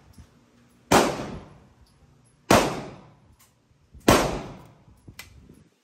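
Three 9mm shots from a Hi-Point 995 carbine, evenly spaced about a second and a half apart, each followed by a decaying echo, with a short click after the third shot.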